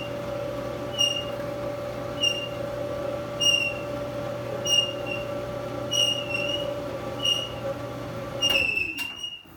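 Frigidaire clothes dryer running, with a short high squeak about once every 1.2 seconds over a steady motor hum: in the repairer's experience, the sign of a worn bearing at the back of the drum. Near the end the dryer is switched off and the hum winds down.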